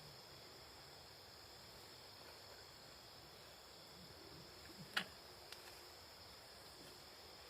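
Faint, steady high-pitched chorus of night insects. A single sharp click sounds about five seconds in, with a fainter one just after.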